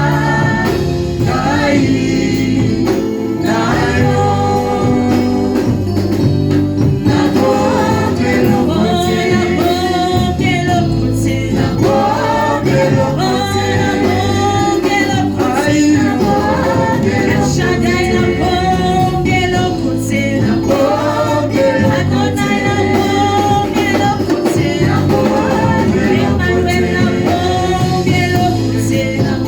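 Gospel worship music: singing voices over a band accompaniment, loud and steady.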